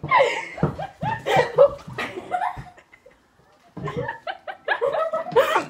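Girls laughing hard in bursts, breaking off for about a second in the middle and then laughing again.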